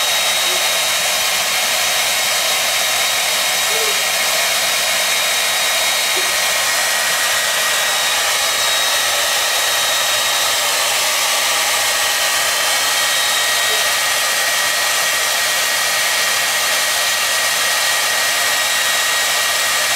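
Handheld hair dryer running steadily: an even rush of blown air with a thin, steady high whine.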